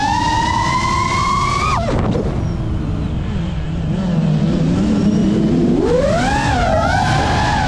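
FPV quadcopter's brushless motors whining with throttle: the pitch climbs, drops sharply about two seconds in as the throttle is cut, stays low for a few seconds, then rises again near six seconds and wavers up and down. Steady wind rush on the onboard microphone underneath.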